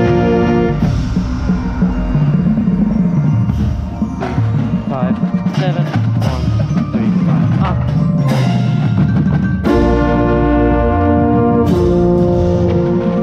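Drum corps rehearsing: a held brass chord, with a euphonium close by, gives way about a second in to a passage of mallet percussion while the horns rest. The full brass section comes back in near ten seconds.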